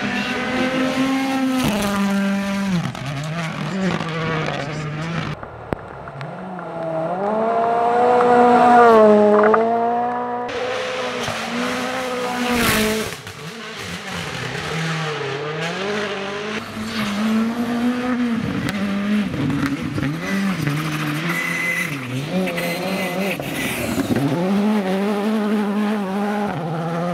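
Rally cars racing flat out on a gravel stage, one after another: the engine note climbs and drops sharply with each gear change and lift, loudest about eight to nine seconds in, with gravel and tyre noise under it. There is a single sharp crack near the middle.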